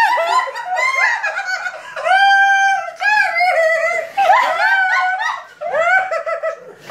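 Hard, high-pitched laughter in rising and falling squeals and giggles, from a woman whose mouth is held open by a cheek retractor, with a long held squeal about two seconds in.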